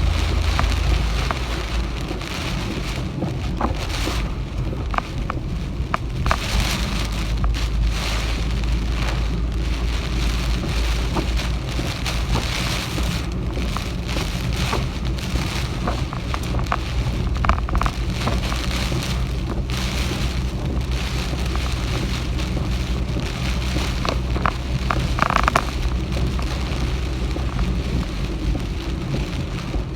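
Heavy typhoon rain pouring steadily, with scattered drips and taps striking nearby surfaces and a constant low rumble beneath.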